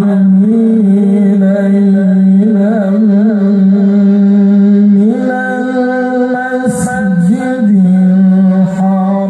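A man's voice reciting the Quran in the melodic mujawwad style through a PA system, in long held notes with ornamented wavers. The pitch steps up about halfway through, and a quick wavering turn comes near the end.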